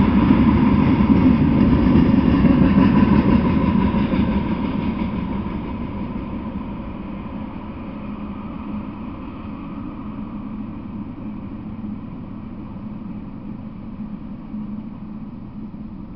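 Freight train of tank cars and a gondola rolling past on the rails, a dense low rumble. It fades after about four seconds as the last cars go by, dying away to a quieter steady rumble as the train moves off.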